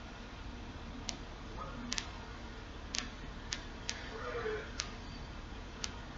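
A series of about eight sharp, brief clicks at uneven intervals over a low steady background hum, with no steady test tone.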